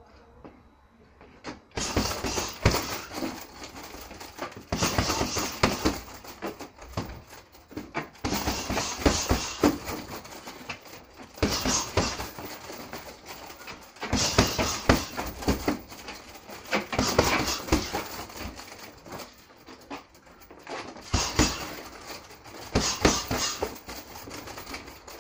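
Boxing-gloved punches landing on a hanging heavy punching bag in repeated flurries, with hard breathing between them. The first punches come about two seconds in.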